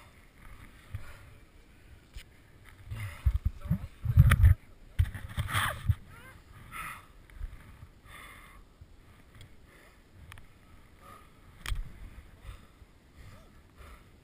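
Snowboard riding through deep powder: irregular swishing and hissing of the board cutting snow and of spray, with gusty rumbles of wind and snow buffeting the helmet-mounted microphone, loudest about four to six seconds in.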